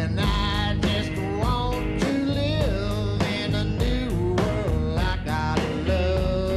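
A rockabilly roots-rock band playing live, with electric guitar over bass and drums and a steady beat.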